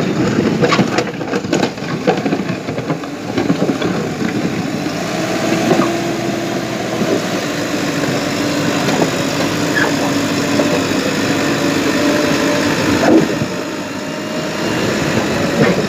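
JCB 3DX backhoe loader's diesel engine running under load as its front bucket pushes wet mud. Scattered knocks and clatter come in the first few seconds, then the engine holds a steady drone that eases off near the end.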